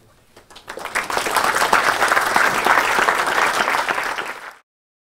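Audience applauding: claps build up over the first second, hold steady, and cut off suddenly near the end.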